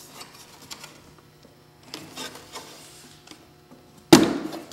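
Faint handling of a snowmobile's metal clutch shield and its latch tabs. Near the end, one sudden loud snap as the shield is popped loose.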